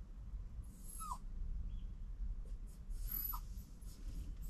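A dog whining: short falling whines, one about a second in and another a little after three seconds, over a low background rumble.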